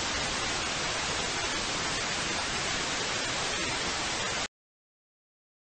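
Television static: a steady, even hiss that cuts off suddenly about four and a half seconds in, leaving dead silence.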